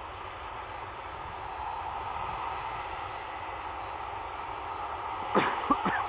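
Steady jet airliner engine noise from the airfield, slowly growing a little louder. Near the end a person coughs twice close to the microphone.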